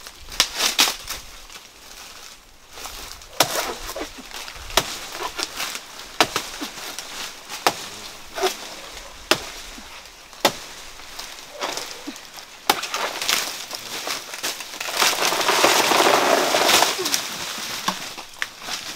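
Machete blows chopping into the soft, fibrous trunk of a banana plant: sharp single strikes, one every second or two. Late on there is a louder rustling crash lasting a couple of seconds as the cut plant and its big leaves come down.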